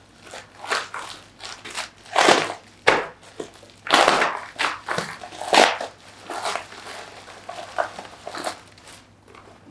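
Bubble wrap and plastic packaging crinkling and rustling in irregular bursts as it is cut with a craft knife and pulled open by hand.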